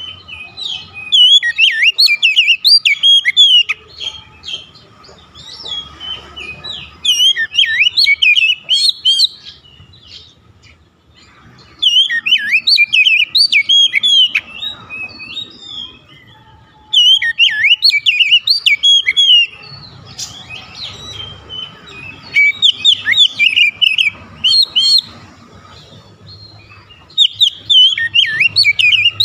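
Oriental magpie-robin (kacer) singing loud bursts of quick, varied whistled phrases, each two to three seconds long, six times about five seconds apart. This is a heated song full of borrowed phrases, of the kind a kacer gives when worked up by a rival's call.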